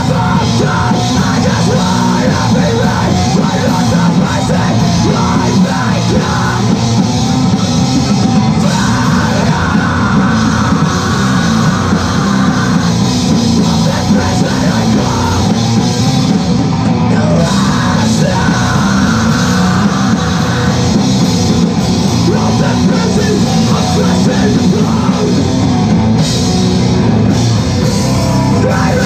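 Live rock band playing loud and without a break: distorted electric guitar over a pounding drum kit.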